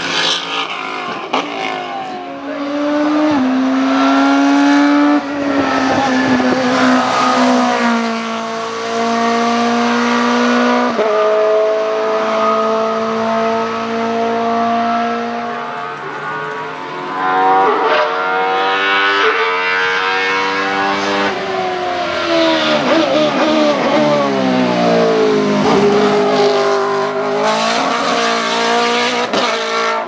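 Hillclimb race-car engines at full throttle. The BMW Z4 GT3's V8 climbs through its gears, its pitch rising and dropping back at each upshift. Later another car's engine note falls steeply as it brakes and shifts down for a corner, then climbs again as it accelerates away.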